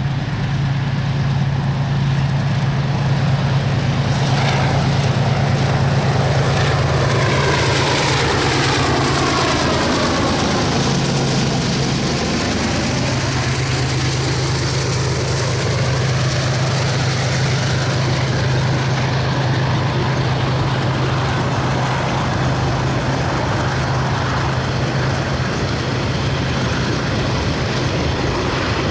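Diesel-electric locomotive engine running steadily with a low hum as the train draws near and passes, the sound sweeping in tone around the middle as it goes by.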